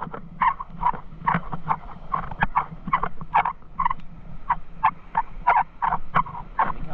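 Footsteps crunching on coarse coral and shell rubble, in a steady walking rhythm of short gritty crunches, two to three a second.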